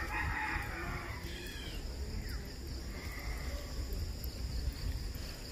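Wind buffeting a phone microphone and rumble from a bicycle rolling along a concrete lane, with steady high insect buzzing from the roadside and a short animal-like call in the first second.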